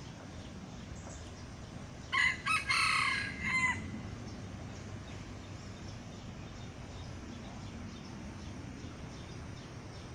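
A wild rooster crows once, about two seconds in: a single crow of about a second and a half, broken into a few segments and ending in a short clipped note. A steady low background rumble runs underneath.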